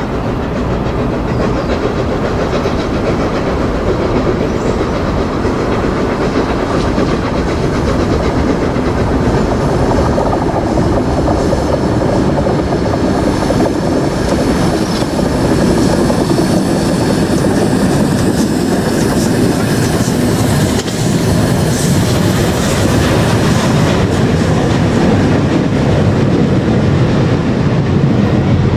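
LNER A3 Pacific steam locomotive 60103 Flying Scotsman and its train of coaches passing, a steady heavy rumble of wheels on the rails.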